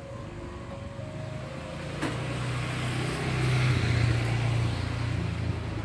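A motor vehicle's engine running with a low hum that grows louder from about two seconds in and is loudest a little past the middle, with a short knock as it starts to rise.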